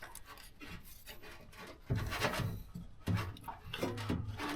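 Rubbing and scraping of wires and connectors being handled and worked into place, louder in a run of strokes from about two seconds in.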